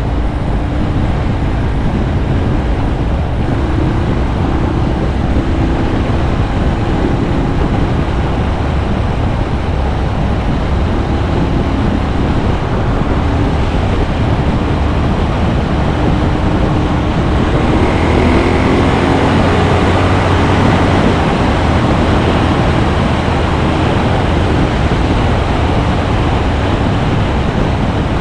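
Motorcycle engine running at road speed under a steady rush of wind on the camera's microphone, its note rising briefly about two-thirds of the way through.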